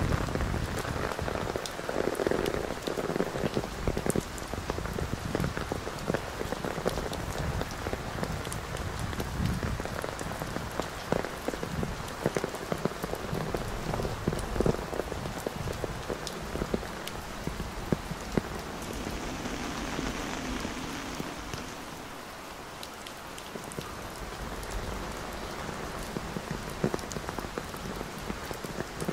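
Heavy rain falling steadily, with many sharp drop ticks close by among the steady hiss.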